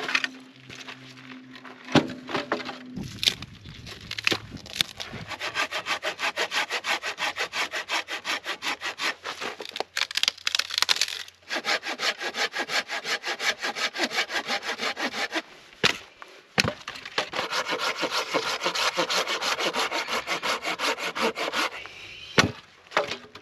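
Curved-blade hand pruning saw cutting through a dry dead branch in quick, even back-and-forth strokes, stopping briefly a few times. A few sharp knocks of wood stand out between the runs of strokes.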